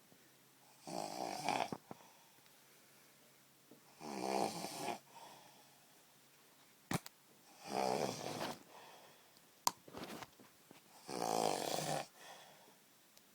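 A person snoring: four loud snores, each about a second long and about three and a half seconds apart, with a rattling pulse through each. Two sharp clicks fall between the snores, about halfway through.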